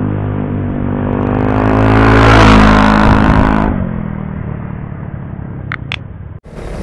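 Motor scooter riding up to and past a low roadside microphone: its engine grows louder, peaks about two and a half seconds in, then drops in pitch and fades as it goes away.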